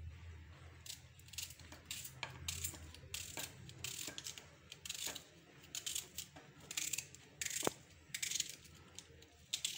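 A knife slicing a red onion held in the hand, with pieces falling into a metal pot: irregular crisp cuts and light clicks.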